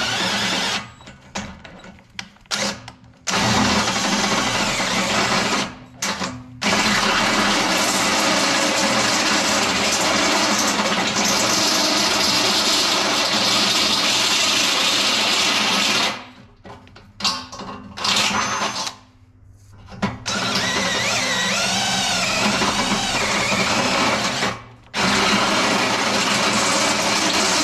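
Handheld cordless drill with a step bit boring through the steel top edge of a tractor loader bucket, opening up a pilot hole. The drill runs in long stretches and stops several times: briefly about a second in and around six seconds, for a few seconds past the middle, and once more near the end.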